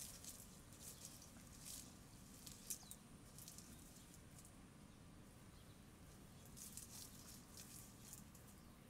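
Faint, intermittent rustling of grass as Shiba Inu puppies nose and paw through it, in short clusters, with one sharper tick a little under three seconds in.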